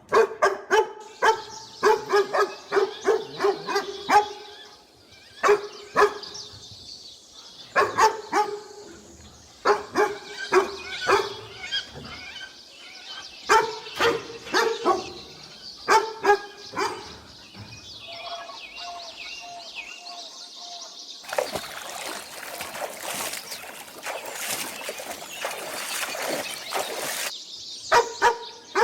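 A dog barking repeatedly in quick runs of several barks separated by short pauses. In the second half a steady hissing noise takes over for several seconds before a few more barks near the end.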